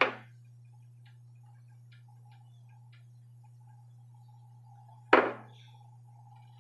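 A single sharp knock about five seconds in, over faint scattered clicks and a steady low hum.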